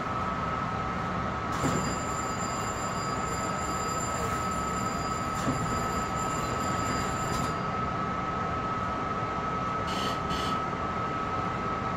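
Long Island Rail Road M3 electric railcar standing at a station, its equipment running with a steady hum and a continuous tone. A high electronic ringing sounds from about 1.5 to 7.5 seconds in, and two short high sounds follow near 10 seconds.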